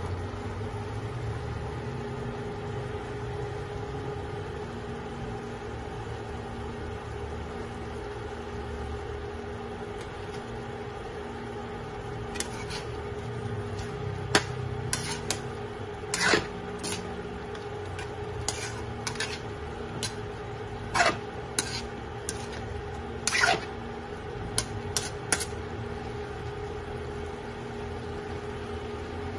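Spatula clinking and scraping against a wok as chicken and carrot pieces are stirred: a dozen or so sharp knocks, scattered through the second half, over a steady mechanical hum.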